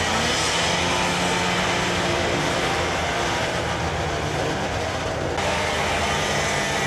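Several racing snowmobiles' two-stroke engines running together as a steady engine drone.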